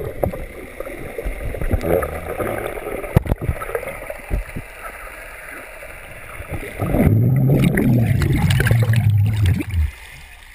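Muffled underwater noise from a submerged GoPro: water rushing and gurgling around the camera housing, with a sharp click about three seconds in. A low, slightly wavering hum starts about seven seconds in and lasts nearly three seconds, and the sound drops off as the camera breaks the surface near the end.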